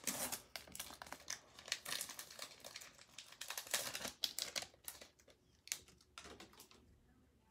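Foil wrapper of a Pokémon booster pack being torn open and crinkled in the hands. The crackling is dense at first and dies away in the last couple of seconds.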